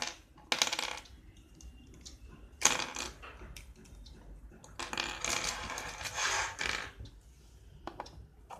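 Loose plastic Rubik's cube pieces clicking and clattering as they are handled and set down on a hard surface, in a few short bursts, the longest lasting about two seconds.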